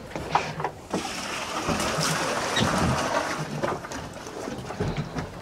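Wind and sea noise aboard a small fishing boat, with a low steady hum under it and a few light knocks.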